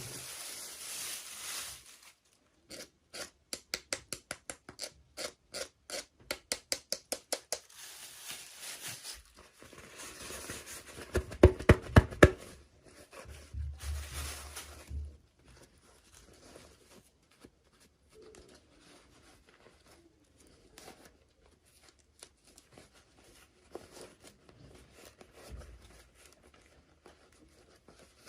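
Toy packaging being opened with scissors: a quick run of snips, about four a second, between bouts of rustling plastic. A cluster of several loud knocks comes about eleven seconds in, followed by faint, scattered handling noises.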